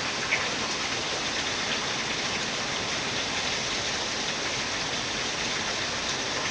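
Heavy rain pouring down, a steady, even hiss of rain on the ground and surfaces.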